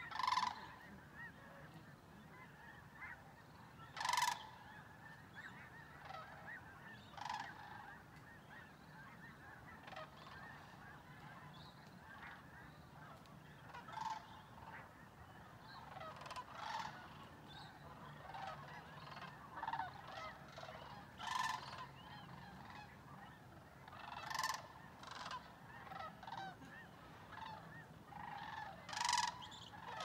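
Flock of sandhill cranes calling: a steady chorus of overlapping calls, with louder single calls standing out every few seconds.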